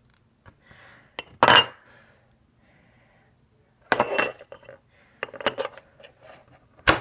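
Small metal parts of a gas blowback airsoft pistol clinking and clattering in short, separate bursts while the spring is worked into the slide. The loudest clatter comes about a second and a half in, more follow around four and five seconds, and a sharp click comes near the end.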